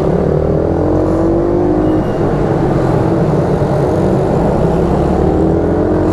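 YCF 88 cc mini moto's small single-cylinder four-stroke engine running under throttle. Its pitch climbs over the first two seconds, drops, then climbs again near the end as the bike accelerates.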